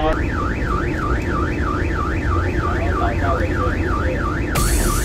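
Coast Guard patrol vessel's electronic siren yelping, rising and falling about four times a second, over a low rumble. A loud rushing hiss joins near the end.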